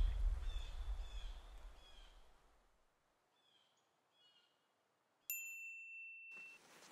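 Logo sound effect: a low rumble fading away over the first two seconds under short bird-like chirps, then a single bright bell-like chime that strikes suddenly about five seconds in and rings on for a second or so.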